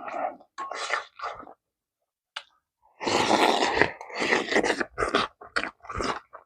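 Close-up eating sounds: mouthfuls of pork kimchi stew being chewed and slurped in short noisy bursts, with a quiet pause of about a second and a half before a longer, denser burst.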